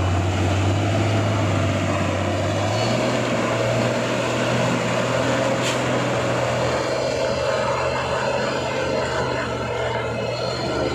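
Heavy diesel engines running hard: a loaded CPO tanker truck labouring through deep mud while a wheel loader works alongside to push it. The engine note steps up in pitch about three seconds in and then holds steady.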